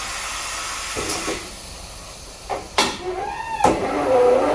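Pneumatic tire changer letting out a steady hiss of air for about a second, then a few sharp metallic clacks as its clamps work on the rim.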